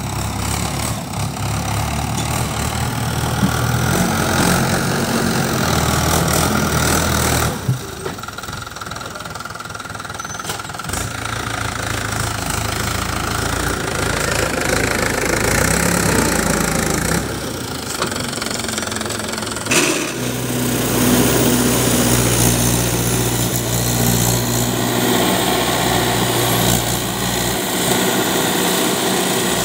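Mahindra 575 DI tractor's diesel engine running as it pulls a trailer loaded with earth through soft ground, its speed rising and falling. The engine note changes abruptly about 8, 17 and 20 seconds in.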